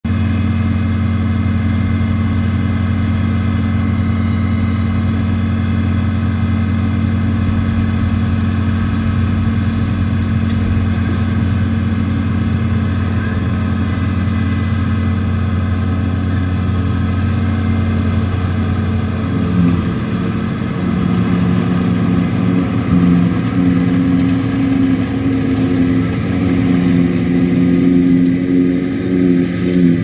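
Tractor engines running under load with a trailed forage harvester cutting silage, a loud steady low drone. About two-thirds of the way through, the engine note shifts higher and turns uneven as the outfit and silage trailer pass.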